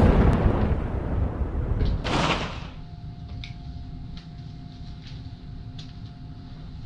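A deep thunder-like boom from a logo intro rumbles and dies away, ending in a whoosh about two seconds in. Then a quiet room with a steady electrical hum and a few faint, sharp clicks.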